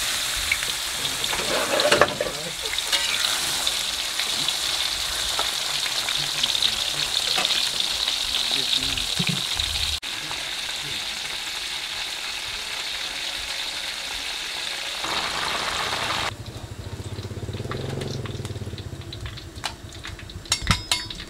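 Sliced wild mushrooms frying in hot oil in a steel wok, with no batter on them, sizzling steadily as a spatula stirs them. About three-quarters of the way through the sizzle drops away, and a few sharp clicks follow near the end.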